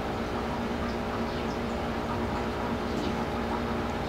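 A steady low mechanical hum made of several constant tones, like a motor or appliance running, with a few faint ticks.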